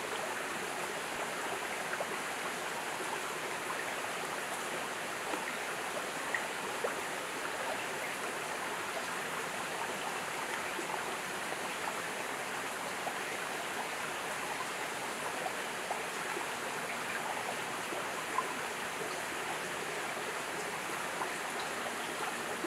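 Steady rush of running water, like a rainforest stream, with a few faint sharp ticks scattered through it.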